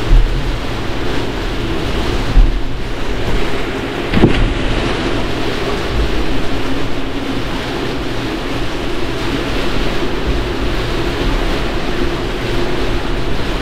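Storm wind and heavy rain on a sailboat during a squall, a dense steady rush of noise. There are a few loud low bumps, likely gusts hitting the microphone, right at the start and about two and a half and four seconds in, over a faint steady hum.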